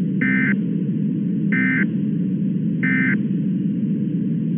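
Emergency Alert System SAME end-of-message code: three short digital data bursts about a second apart, over a steady low radio static hiss. The bursts mark the end of the weather radio's Required Weekly Test message.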